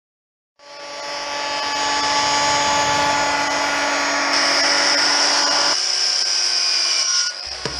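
Large handheld circular saw cutting lengthwise through a heavy timber beam: the motor comes up to speed, then a steady loud whine over the rasp of the blade in the wood, dropping in level with the whine rising near the end.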